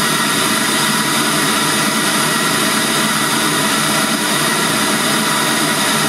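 Machete MM-65 6.5-inch midrange speaker playing a steady hiss-like test noise at a constant level, measuring about 71 dB on a sound-level meter.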